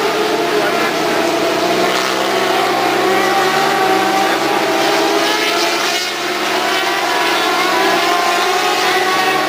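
Racing superbike engines at high revs as several bikes circulate the track. The engine note rises and falls in pitch, with a brief dip in loudness about six seconds in.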